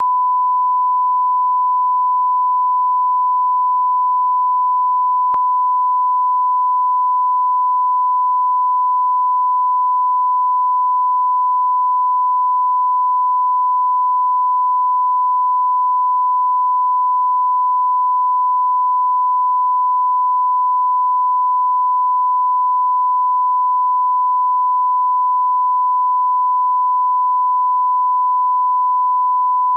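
Steady line-up test tone played with SMPTE colour bars: a single unbroken high beep at one pitch, with a faint tick about five seconds in.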